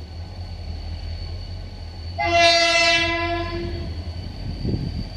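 Freight train's horn sounding one blast of about a second and a half, a little over two seconds in, over a low steady rumble from the approaching train.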